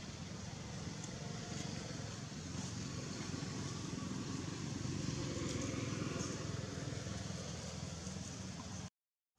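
Steady outdoor background noise with a low rumble, like distant traffic or wind. It cuts off abruptly to silence near the end.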